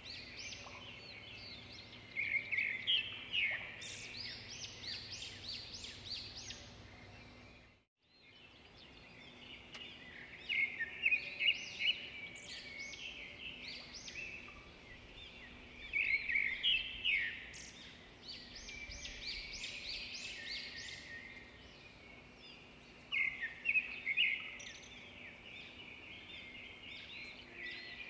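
Many small birds chirping and twittering in dense, overlapping bursts. The sound briefly cuts out about eight seconds in.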